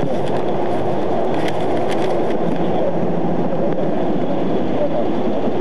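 Steady low rumble of the idling patrol car, heard from inside its cabin through the dash camera's microphone, with a couple of faint clicks about two seconds in.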